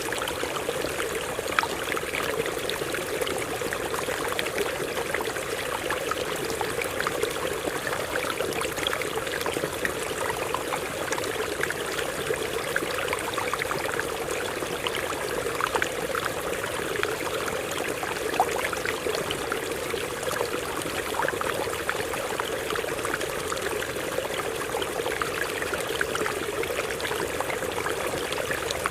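Stream water running over rocks: a steady, even rush dotted with many small quick splashes.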